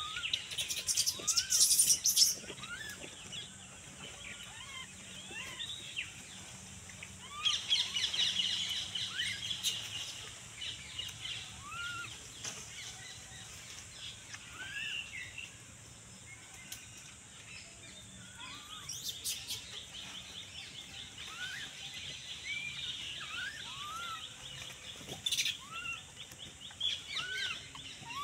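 Birds chirping and calling: many short rising chirps, with busier bursts of high chatter near the start, at about 8 seconds and again near the end, over a steady faint high hiss.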